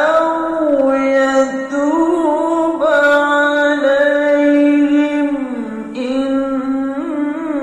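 A man reciting the Quran in melodic tilawah style, holding long, ornamented notes that bend up and down in pitch, with a falling glide about six seconds in.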